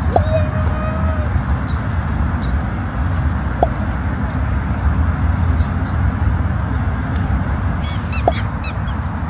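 Wind rumbling and buffeting on the microphone in an open park, with a few short, high bird chirps about eight seconds in.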